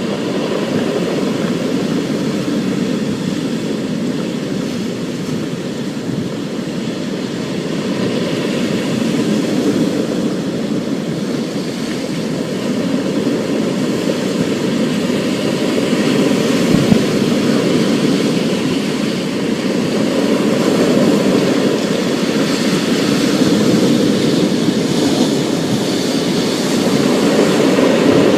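Thunderstorm: a continuous low rumble that swells and eases every few seconds, with a fainter hiss above it.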